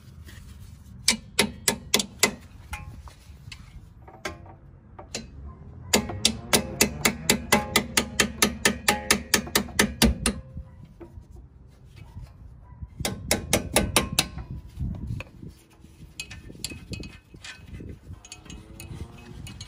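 Hand ratchet wrench clicking in quick, even runs of about five clicks a second, three runs in all with the longest in the middle, as a fastener is turned.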